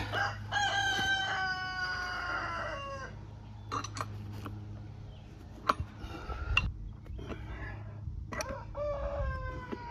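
A rooster crowing twice: one long crow at the start that falls in pitch at its end, and a shorter crow near the end. Between the crows come a few sharp metallic clicks from a wrench working a gate hinge bolt.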